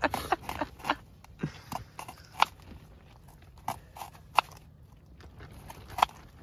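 Kitchen knife chopping onion on a wooden cutting board: irregular crunchy cuts and knocks of the blade on the board, the sharpest strikes about two and a half, four and a half and six seconds in. The cook complains that this knife cuts poorly.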